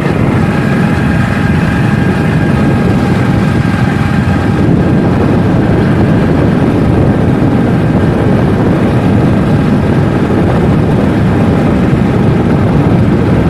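Motorcycle running steadily on the move, a continuous low rumble of engine and riding noise.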